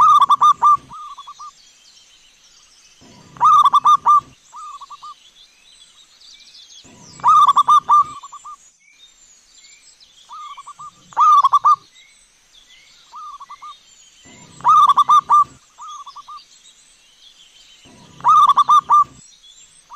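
Zebra doves (perkutut) cooing: six loud bursts of rapid, trilled coos, one about every three and a half to four seconds, with quieter coo phrases in between. Faint chirping of small birds underneath.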